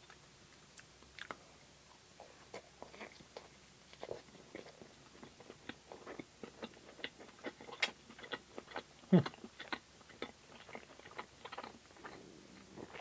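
Close-miked chewing of a soft, fluffy fry bread stick topped with whipped cream: wet mouth clicks and lip smacks at an irregular pace. About nine seconds in comes a brief low vocal sound falling in pitch.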